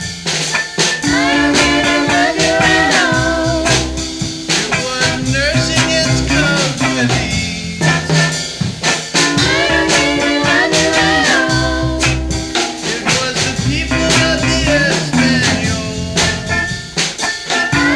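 Band music with guitar and drum kit playing a bluesy rock groove.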